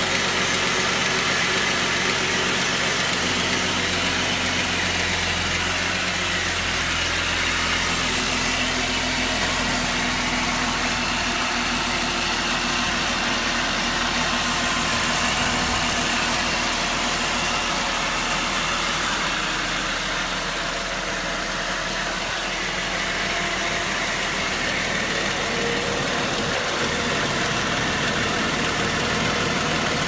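Car engine idling steadily with a rapid, regular ticking over the running noise, which the owner suspects is lifter noise.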